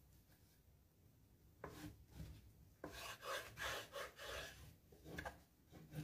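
Glued scrapbook paper being rubbed down onto an MDF box with a small smoothing tool: soft, irregular scraping strokes in the second half, after two light taps. The rubbing presses the paper firmly onto the glued wood, especially at the edges.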